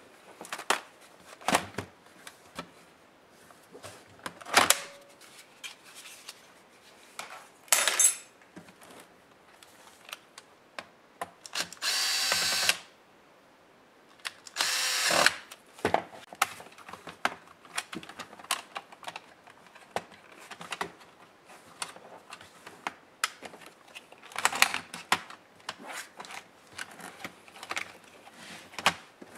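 Electric screwdriver running briefly twice with a steady whine, amid scattered clicks and taps of screws and the laptop's plastic case being handled.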